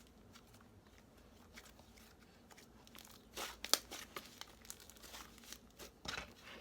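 Slime being squeezed and stretched by hand: faint clicks at first, then from about three seconds in a quick run of sharp crackling pops.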